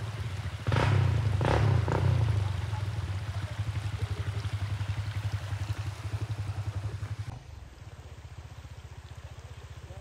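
Small dirt bike engine revving in a few quick bursts about a second in, then running with the throttle surging up and down. Near the end it continues quieter and steady.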